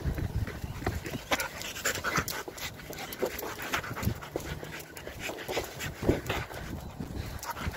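Labrador panting in quick, uneven breaths.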